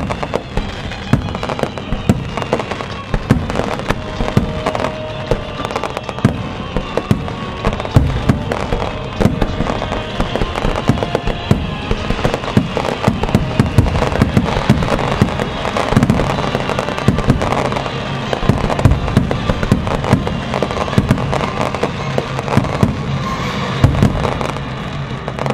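A Japanese star mine, a rapid-fire barrage of aerial firework shells bursting, dense overlapping booms many times a second, with music playing along.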